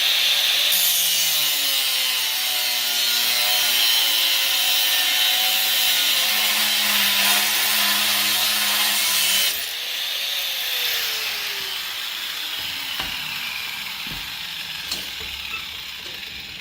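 Angle grinder with a cutoff wheel cutting through a steel horseshoe held in a vise: a loud, steady grinding for about nine and a half seconds. The cut then stops, and the grinder winds down with a falling whine that fades away.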